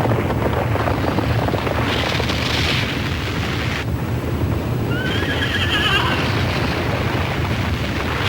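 Earthquake rumble: a loud, continuous deep rumbling with a crashing, rattling noise over it. About five seconds in, a brief high wavering cry rises above it.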